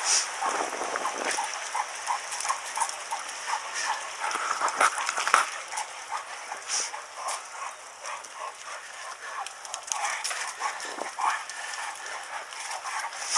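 A dog trotting on a leash beside a bicycle: light, rhythmic tapping of its paws and claws on the pavement, a few steps a second, over the hiss of bicycle tyres on wet ground.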